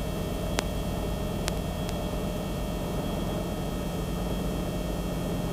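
Cabri G2 helicopter's piston engine and rotor running steadily at flight RPM, heard from inside the cockpit as an even hum and whir. A few faint clicks sound about half a second and about two seconds in.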